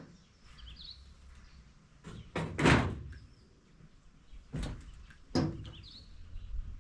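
A series of three knocks or bangs, the loudest and longest about two and a half seconds in, then two shorter ones near the end, with a couple of faint bird chirps.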